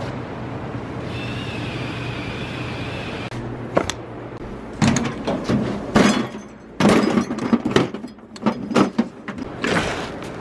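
Metal hand and air tools clanking and rattling in a toolbox drawer as it is worked through, with several sharp knocks in the second half. A steady hum with a faint high whine fills the first few seconds.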